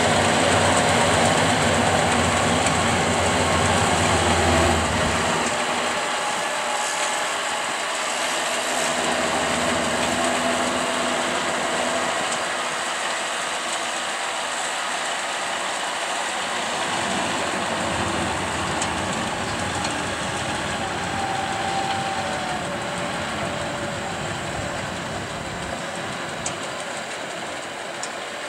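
John Deere tractor's diesel engine running as it pulls a John Deere 592 round baler through the hay, the engine and baler machinery making a steady loud noise that grows gradually fainter as the rig moves away.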